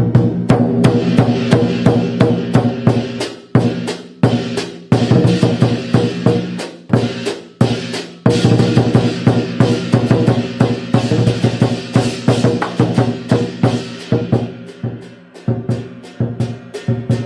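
Chinese lion dance percussion music: a drum beaten in fast, dense strokes with crashing cymbals, broken by a few brief pauses.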